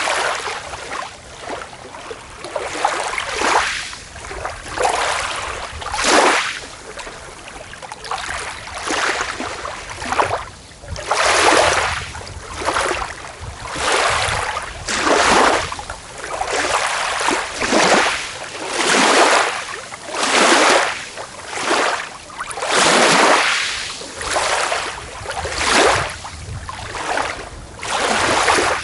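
Small waves breaking on a beach, one washing in every second or two, each swelling up and fading away as it hisses over the shore.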